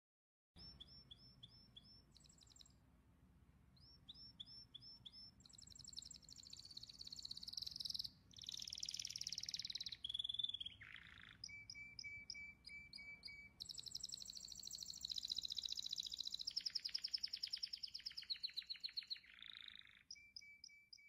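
A songbird singing a long run of high, rapid chirps and trills in repeated phrases, starting suddenly about half a second in and cutting off at the end.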